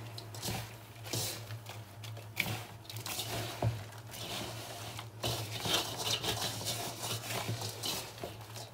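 Hands rubbing and turning moist semolina dough, worked with butter and oil, in a stainless steel bowl: irregular gritty rustling and scraping as the grains are rubbed between the fingers without kneading. A steady low hum runs underneath.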